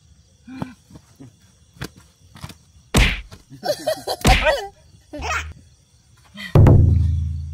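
Large carp thrashing on the grass. Its body slaps the ground in two loud thwacks about three and four seconds in. Near the end comes a heavy thump, followed by a low boom that fades away over about a second.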